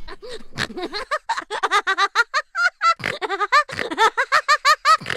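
A boy laughing hard in a long run of quick, high-pitched giggles, several a second, with a brief pause for breath about three seconds in.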